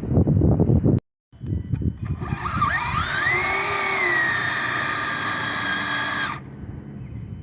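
Electric motor of an RC drag truck whining as it spins up: a high whine that rises in pitch, holds for about four seconds, then cuts off. Before it, wind noise on the microphone, cut off abruptly about a second in.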